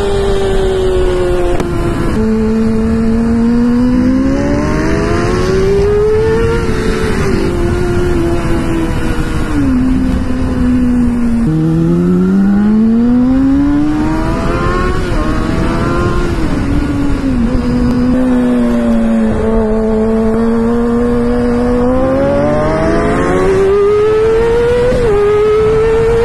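Kawasaki ZX-6R inline-four sport bike engine with a Two Brothers full exhaust system, accelerating hard. It revs up in rising climbs, and the pitch drops sharply at each of several upshifts. Heavy wind rush is on the microphone throughout.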